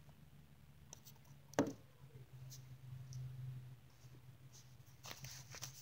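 Small plastic toy horses being handled on carpet: light clicks and scratches, with one short sharp sound falling in pitch about one and a half seconds in and a cluster of clicks near the end, over a steady low hum.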